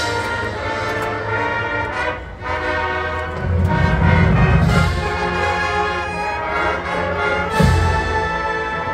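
Marching band playing the school alma mater in slow held brass chords, with low drum swells about a third of the way in and again near the end.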